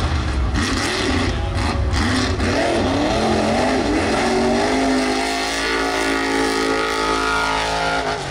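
Mega mud truck engine revving hard at racing speed, its pitch swinging up and down, then held at high, steady revs for the last few seconds before it drops away near the end.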